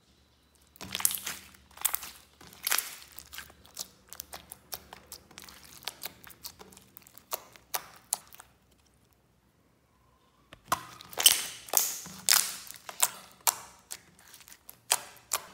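Glossy slime being squeezed and pressed by hands, giving runs of sticky clicks and pops, in two stretches with a pause of about two seconds between.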